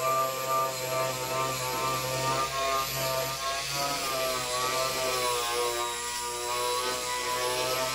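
Angle grinder with an extra-coarse stripper disc grinding rust and paint off a steel truck floor pan. Its motor whine dips and recovers as the disc is pressed into and eased off the metal, over a steady grinding hiss.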